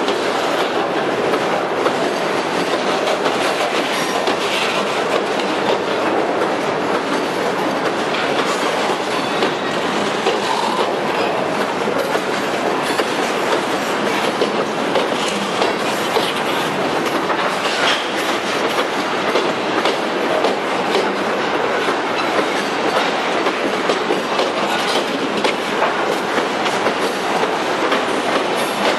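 Freight cars (boxcars, gondolas, then tank cars) rolling past close by: a steady rumble of steel wheels on rail, with scattered clicks as the wheels cross the rail joints.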